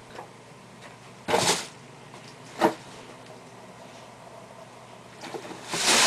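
A cardboard shoebox and a sneaker being handled. There is a short rustling scrape a little over a second in, a single knock near the middle, and rustling that grows louder near the end.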